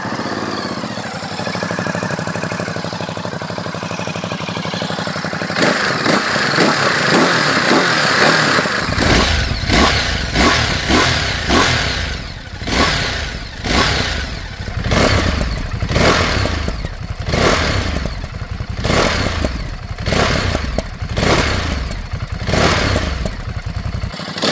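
Ducati Monster SP's 937 cc Testastretta V-twin idling through its factory Termignoni exhaust, then revved in short throttle blips about once a second from about nine seconds in.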